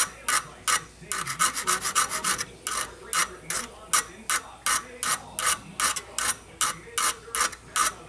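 Metal hand file rasping across the end of a foothold trap's steel dog in quick, even strokes, about three a second. The dog is being filed square so it will catch in the pan's notch to night latch the trap.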